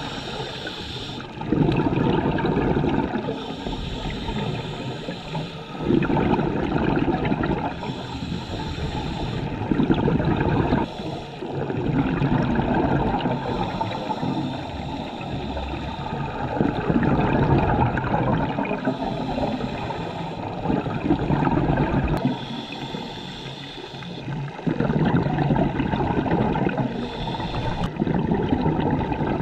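Underwater sound of a scuba diver breathing through a regulator: exhaled bubbles gurgle in a loud surge every four to five seconds, with a short hiss of inhalation between them.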